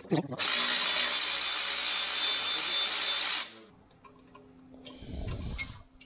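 Cordless power tool running steadily for about three seconds, spinning a nut off a bolt on the backhoe bucket linkage, then cutting off.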